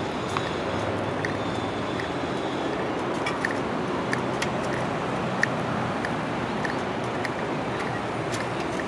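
Steady road traffic noise, with short ticks now and then that fit footsteps on the paved path.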